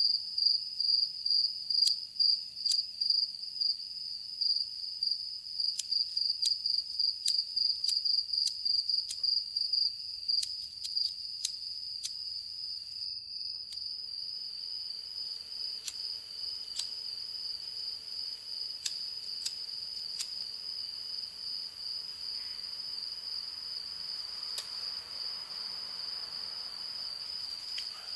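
Crickets trilling: a steady, high, rapidly pulsing chirp, with scattered sharp clicks through the first half. The sound drops out briefly about halfway through, then the trilling carries on.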